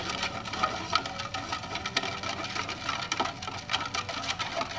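Thin rod stirring ammonium chloride into water in a foam cup, with quick irregular clicks and light scraping as it knocks against the cup wall while the solid dissolves.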